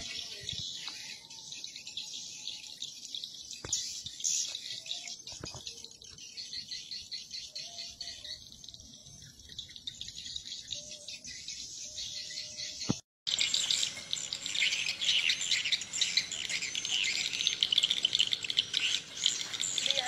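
Swiftlet lure call track made for swiftlet houses: dense, continuous high-pitched chirping and twittering of swiftlets. It cuts out briefly about 13 seconds in and comes back louder.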